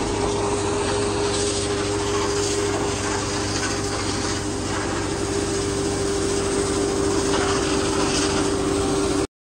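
Vacuum truck's suction pump running steadily with a constant whine while its hose draws sewage out of a manhole, mixed with the hiss of a high-pressure water jet spraying into the pit. The sound cuts off abruptly near the end.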